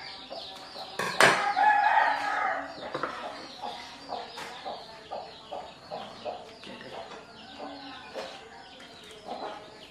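Chickens: a rooster crows once, loudly, starting about a second in, over repeated short clucking and many high chirps.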